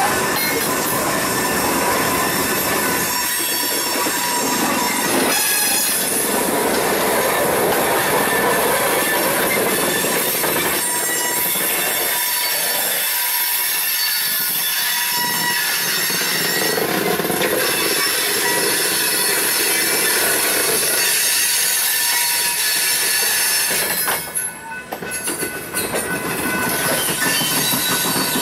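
Freight train of covered hopper cars rolling past close by: a steady loud rumble and rattle of steel wheels on rail, with thin high wheel-squeal tones running through it. The noise dips briefly near the end before returning.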